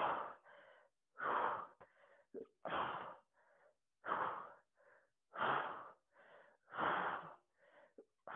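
A woman breathing hard and rhythmically while holding an ab crunch: a loud, noisy breath about every second and a half, with fainter breaths in between, the heavy breathing of sustained core effort.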